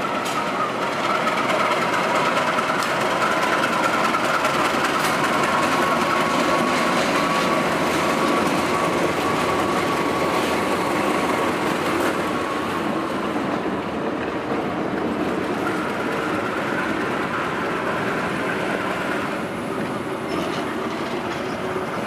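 BB304 diesel locomotive running alone at shunting speed close by: steady engine and rail noise with the wheels on the track, and a faint high whine that drifts in pitch.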